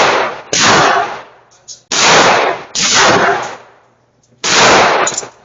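Gunfire at a shooting range: about five loud shots at uneven intervals, each starting sharply and dying away over about half a second.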